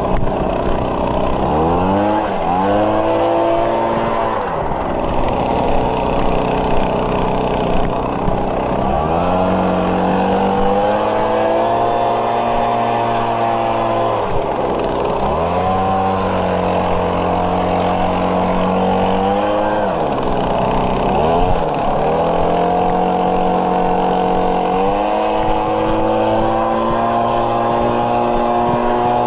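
Small gasoline engine of lawn-care equipment running steadily. Its speed sags and climbs back up several times.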